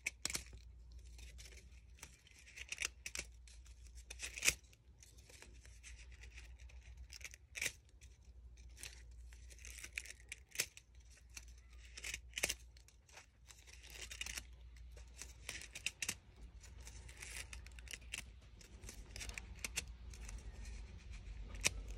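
Stacked fringed cardstock strips rustling and crackling as they are pulled and curled over a bone folder, with scattered sharp paper clicks.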